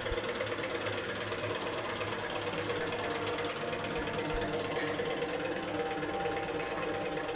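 A machine running steadily, a constant hum with a fast, even mechanical clatter.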